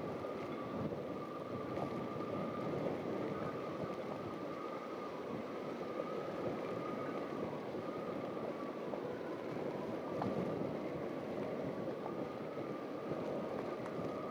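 A small boat's motor running steadily on the water, with water rushing and wind buffeting the microphone.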